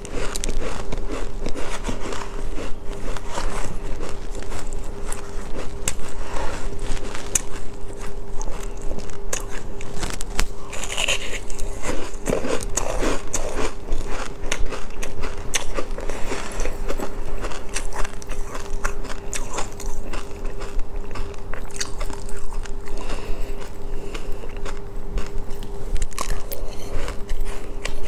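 Close-miked eating of seafood: repeated crunchy bites and chewing with many sharp crackles, over a steady background hum.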